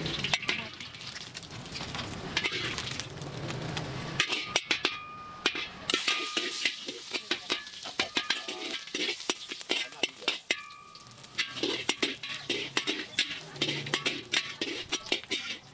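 Prawns and sliced meat sizzling in hot oil in a steel wok, with a metal spatula stirring and scraping against the wok in many quick clicks and scrapes.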